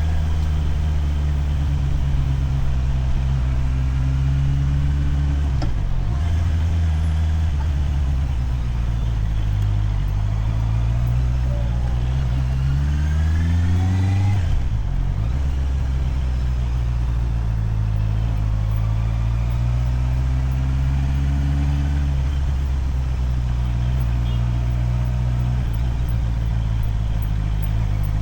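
Motorcycle engine under way, its revs rising and falling as it accelerates and shifts: a brief dip about six seconds in, a climb to a higher pitch around the middle that cuts off sharply at a gear change, then another rise and a settle, over a steady hiss of road and wind.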